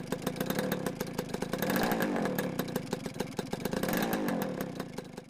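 Two-stroke motorcycle engine revved up and back down twice, with a dense crackle of rapid popping.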